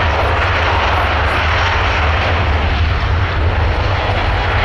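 An Airbus A350 XWB's Rolls-Royce Trent XWB turbofans at takeoff thrust during the takeoff run. A loud, steady jet-engine noise over a deep rumble.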